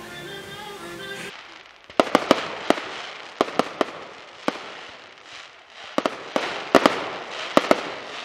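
Fireworks display: a dozen or more sharp bangs of bursting shells, several in quick clusters, with a hiss between them. Background music plays for about the first second, before the bangs begin.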